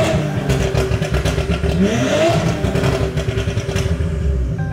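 Porsche engine revved, its note climbing sharply about two seconds in before settling, with a rapid crackle over it in the first second and a half, heard from inside the cabin.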